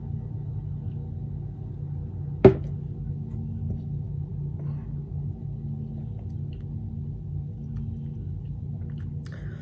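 Steady low hum in a small room, broken by one short, sharp knock about two and a half seconds in as the plastic shaker cup is set down on the desk.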